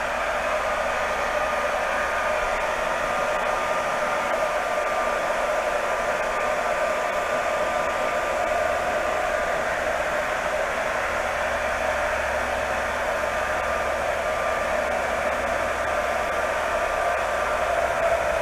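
Handheld hair dryer running steadily: a constant rushing blow of air with a faint steady whine.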